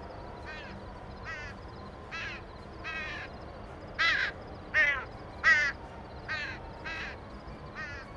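Sound-effect recording of a crow cawing about ten times at an even pace over a steady background ambience. The caws swell to their loudest around the middle, with three sharp caws between about four and five and a half seconds in, as the crow is panned binaurally to swoop past the listener's head.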